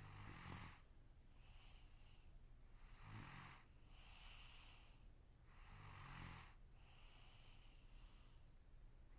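A sleeping person snoring: three faint snores with a low rattle, about three seconds apart, with softer breaths between them.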